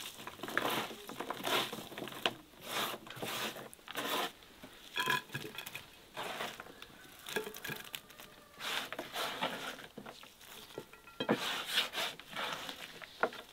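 Fresh sliced salad vegetables (red onion, cucumber, tomato, pepper) being handled by hand and dropped onto a ceramic platter: irregular soft rustling and moist crinkling, one handful after another.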